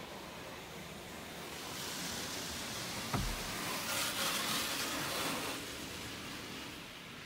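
Automatic car wash spray washing over the car, heard from inside the cabin: a hiss that builds about two seconds in, is loudest in the middle and then fades. A single thump about three seconds in.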